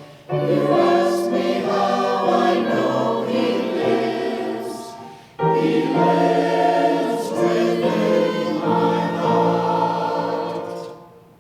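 Church choir singing a hymn in two long phrases, with a short break about five seconds in; the singing fades away just before the end.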